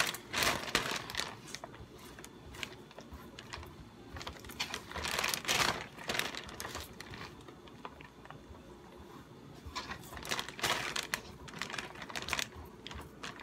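A clear plastic freezer bag crinkling and rustling in irregular bursts, with small clicks and taps, as it is handled and filled with chopped green onions.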